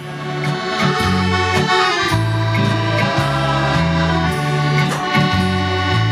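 Accordion-led instrumental music with a bass line stepping from note to note about twice a second and a few sharp beats, the band opening a sea shanty before the singing comes in.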